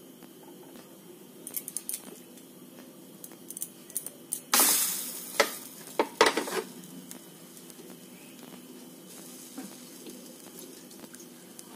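Thin rolled roti dough, one side wetted with water, laid on a hot non-stick pan: it sizzles loudly for about a second about four and a half seconds in, followed by a few sharp knocks and clicks as it is pressed down by hand. A steady low hum runs underneath.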